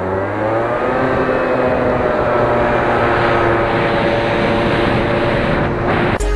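Junak 806 engine under way, rising in pitch as it accelerates over the first two seconds, then holding a steady note at speed over road and wind noise. It cuts off abruptly near the end.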